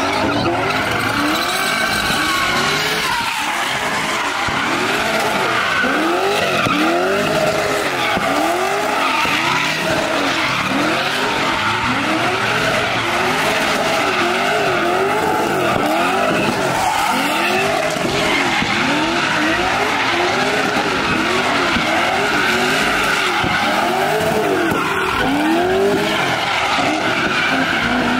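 Car engines revving up and falling back over and over, roughly once a second, with tires squealing as the cars spin donuts.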